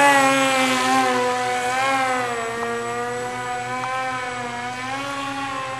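Electric motor of a foam RC F-117 model jet, running on a 3S lithium battery, whining steadily at speed. It is loudest at the start, and its pitch wavers a little up and down as the plane flies.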